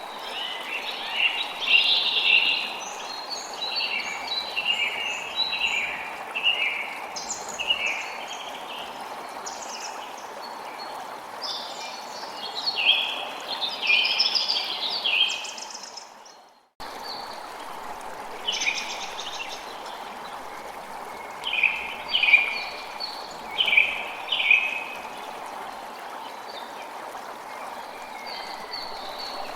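Forest ambience: a steady rushing noise like running water, with songbirds calling in short bursts several times. About two-thirds of the way through, it fades out to silence and then starts again suddenly, like a loop point in the recording.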